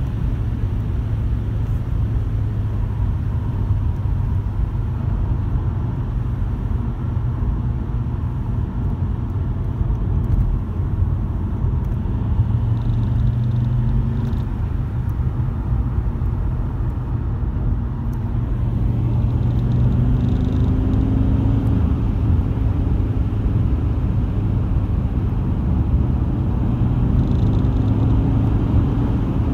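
Car driving with a steady low rumble. The engine note rises twice in the second half as it accelerates, which is when the vibration noise comes on.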